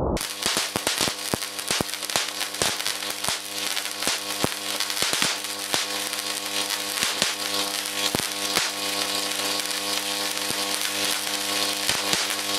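High-voltage arc burning off the edge of a foil-and-perspex plate capacitor: a steady buzzing hum with a hiss over it and irregular crackling snaps throughout.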